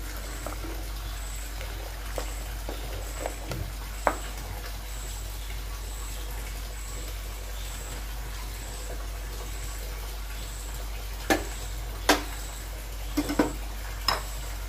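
Spiced stock boiling in a pressure cooker pot, with a steady bubbling hiss, while a ladle stirs it and knocks sharply against the pot once about four seconds in and several times near the end.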